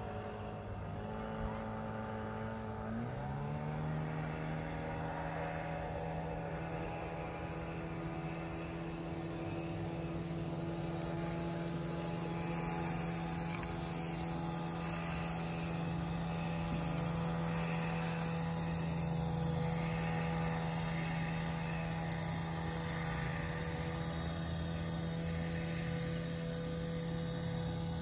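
Motorboat engine droning steadily, its pitch dipping and then settling higher about three seconds in. A steady high chorus of insects grows in from around eight seconds.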